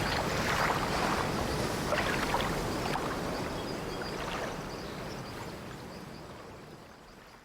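Ambient sea waves washing against a wooden sailing ship, with the ship's old timbers creaking now and then. The whole sound fades out steadily to silence.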